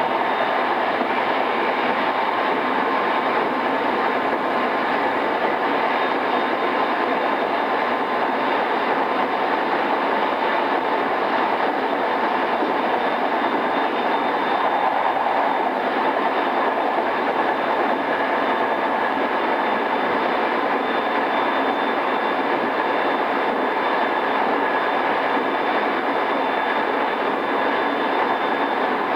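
Interior running sound of a JR East E217 series motor car before its renewal, travelling at a steady speed: an even rumble of wheels on rail with a faint steady whine. The sound is dull and lacks treble, as recorded on cassette tape.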